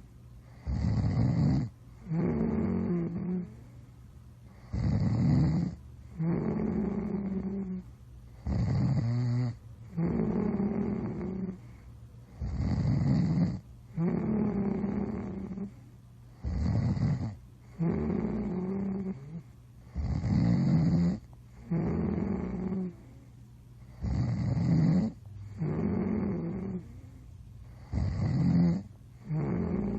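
Steady snoring in slow, even breaths: each breath is a loud, rough snore followed by a lower, droning one, repeating about every four seconds.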